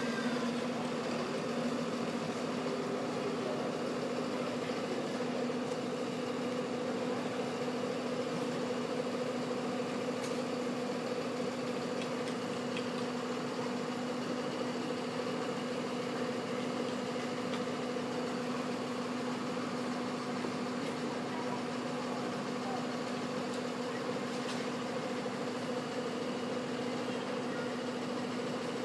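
Fire engine with an aerial ladder, its engine idling with a steady, constant hum while it powers the extended ladder.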